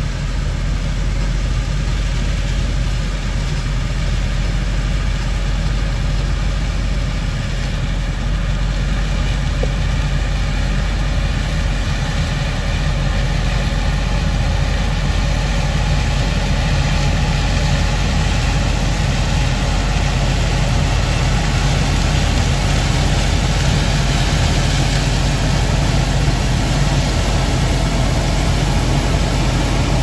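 Case IH 2388 combine harvesting corn. Its diesel engine and threshing machinery run with a steady drone that grows slightly louder as the machine comes closer.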